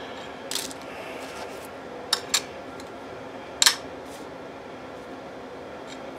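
A few short metallic clinks of steel engine parts being handled on a workbench: piston rings on a digital scale and piston-and-connecting-rod assemblies knocking together. Two clinks come close together about two seconds in, and the loudest comes about three and a half seconds in.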